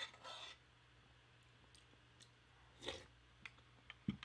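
Mostly near silence, with a few faint short scrapes and small clicks of a wooden spoon stirring the noodle broth in the bowl.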